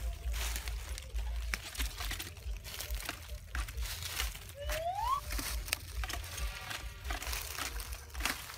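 Leafy branch rustling and crinkling as it is shaken about inside a plastic bucket, a dense run of short crackles. A short rising whistle about five seconds in.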